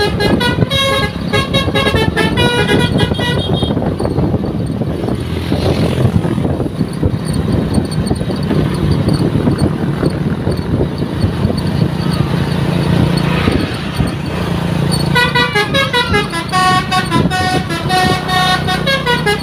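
ALS bus's 'telolet' multi-tone musical horn playing a quick stepping run of notes, stopping after about three seconds and starting again about fifteen seconds in. In between, the bus's engine is running.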